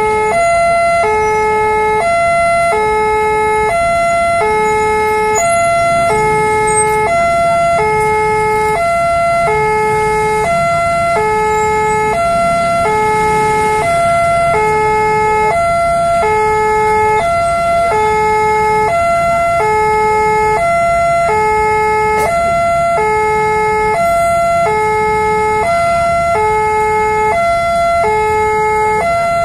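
Electronic warning alarm of a railway level crossing sounding steadily, two notes alternating high and low, each about half a second long.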